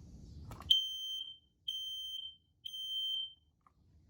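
Kidde smoke alarm sounding on test: a click, then three high-pitched beeps, each a little under a second long with short gaps between, in the temporal-three fire-alarm pattern.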